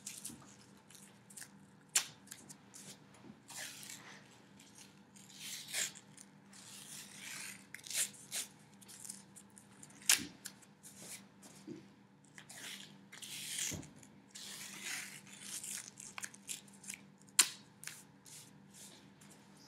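Rigid white athletic tape being pulled off the roll in repeated rasping pulls, with sharp snaps where strips are torn off, as stirrups are laid over pre-wrap around an ankle.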